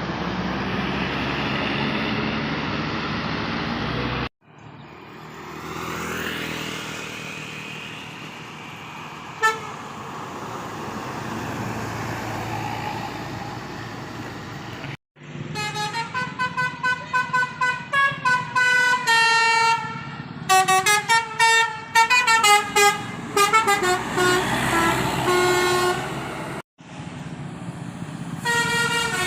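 Bus engine and traffic noise, then a bus's telolet horn (a set of tuned multi-tone air horns) playing fast runs of short toots that step up and down in pitch as a melody. The horn sounds in edited stretches, starting about halfway through and again near the end.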